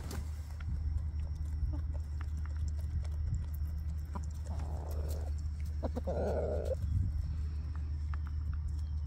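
Chickens pecking at scratch grain on gravelly ground: a run of small sharp pecking clicks, with two short soft noisy sounds from the birds about four and a half and six seconds in, over a steady low rumble.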